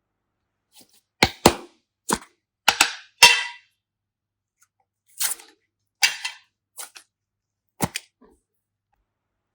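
Slime being pressed and stretched, giving a series of sharp snapping pops, some in quick pairs, in three clusters a few seconds apart.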